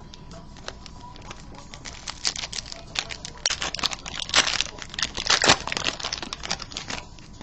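Foil wrapper of a basketball trading card pack crinkling as it is handled and opened, in dense crackly bursts that are busiest in the middle stretch.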